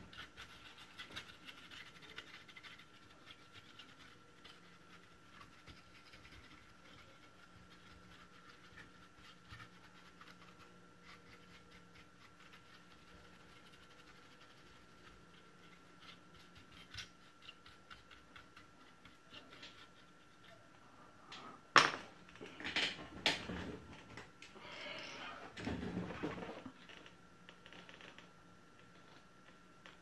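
Faint scratching and rubbing of hands working over a bare laptop motherboard. About two-thirds of the way through there is a sharp click, followed by a few seconds of louder scraping and rustling.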